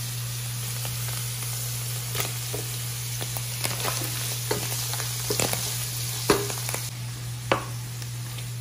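Beef cubes sizzling in oil in a pan with onions, garlic and mushrooms, stirred with a wooden spatula that knocks and scrapes against the pan every second or so.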